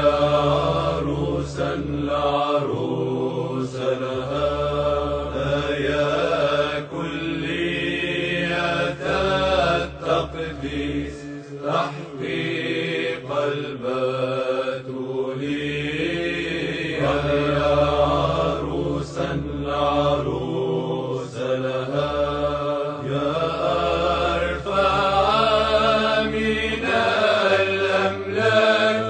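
Orthodox liturgical chant: voices singing a continuous, slowly moving line without a break.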